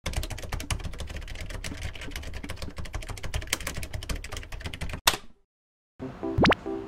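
Typewriter sound effect: rapid key clicks as text types out, ending in one sharp strike at about five seconds. After a short silence, music starts near the end with a rising slide.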